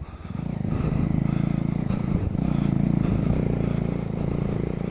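Motorcycle engine running while riding, a steady, fast-pulsing engine note that swells up just after the start and then holds.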